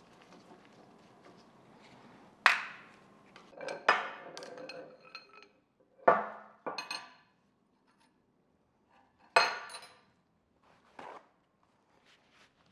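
Metal parts of a Wilton bullet vise clanking and clinking against a metal workbench as they are handled and set down: about six sharp metal knocks, each with a short ring, with a brief rattle after the second.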